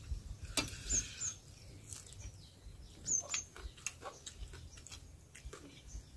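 Faint eating sounds from people eating rohu fish and rice with their fingers: scattered chewing and lip-smacking clicks. A small bird gives short high chirps in pairs, about a second in and again about three seconds in.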